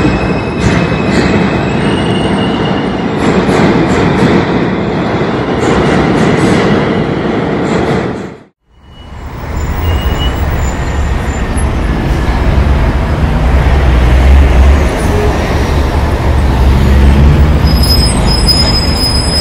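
Subway train noise in a station: a loud, steady rumble and rattle that drops out abruptly for a moment about eight and a half seconds in, then returns heavier in the low rumble.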